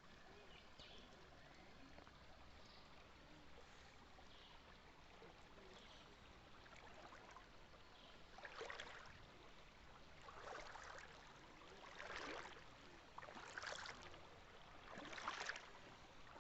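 Faint flowing water: a steady low rush, with louder surging splashes about every one and a half to two seconds in the second half.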